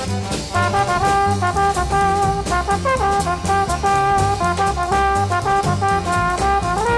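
Jazzy background music led by brass instruments, with a walking bass line and a steady drum beat.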